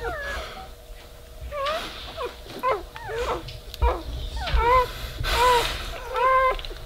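Newborn Weimaraner puppy crying as the mother licks it: a string of short, high squeals, several falling in pitch, with a low thump near the middle.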